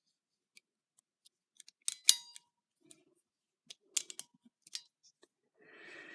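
Gerber 06 spring-assisted folding knife clicking as its lock is pushed in and the blade is closed: one sharp metallic snap with a brief ring about two seconds in, then a few lighter clicks around four seconds.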